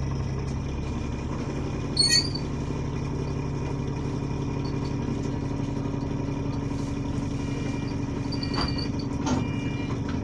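City bus engine running steadily, heard from inside the passenger saloon as the bus drives, with a brief sharp ringing clatter about two seconds in.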